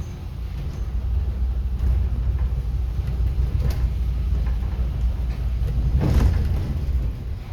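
City bus driving, heard from inside the cabin: a steady low rumble of engine and road noise, with a louder noisy surge about six seconds in.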